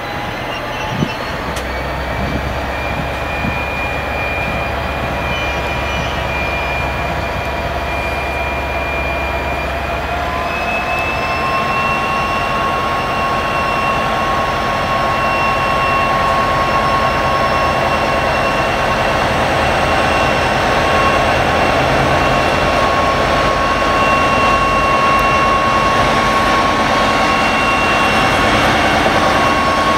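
Infranord MZ-class diesel locomotive pulling away under power with a loaded timber train. Its engine runs with a steady whine that steps up in pitch about ten seconds in, growing louder as it approaches.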